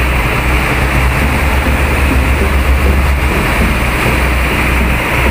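Bulk cement tanker unloading pneumatically: a steady, loud rush of compressed air and cement powder through the discharge pipes, over the low, even hum of the air compressor running.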